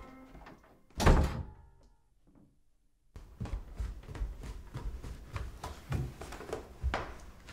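A door shuts with a loud thunk about a second in. After a short pause comes a run of soft, regular footsteps down wooden stairs.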